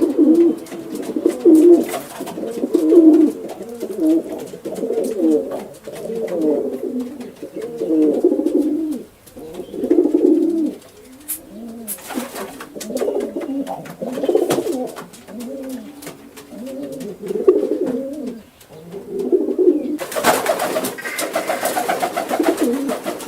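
Pigeons cooing continuously, several low overlapping coos one after another. A brief rustling noise about halfway through and a longer one near the end sound over the cooing.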